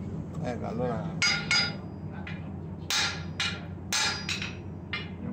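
Hand hammer striking a red-hot metal bar on an anvil: about seven sharp blows in uneven groups, each with a short metallic ring.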